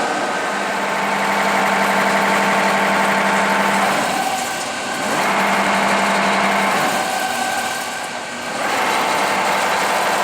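1960 Webster Bennett Model DH vertical turret lathe running under power, a steady machine hum with a few steady tones that dips and shifts briefly about four seconds in and again about eight seconds in. It runs nice and quiet, the sign of a machine in good order.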